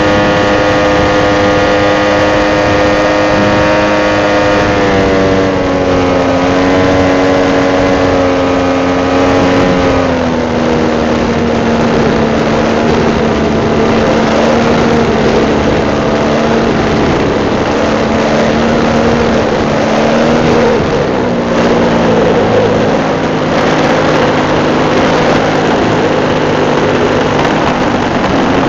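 RC model airplane's motor running in flight, picked up by the onboard camera with rushing air. The throttle is eased back in steps about five, ten and twenty-one seconds in, and the pitch drops each time.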